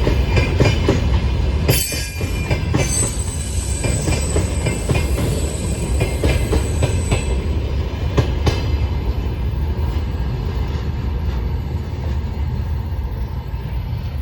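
Freight train wagons rolling past, wheels clacking over rail joints over a steady rumble. A thin, high wheel squeal comes in about three seconds in and fades out a few seconds later. The whole sound slowly grows quieter.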